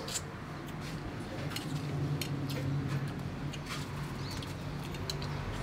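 Close eating sounds: chewing and mouth smacks with a string of short sharp clicks as chopsticks pick food from the plate, over a low steady hum.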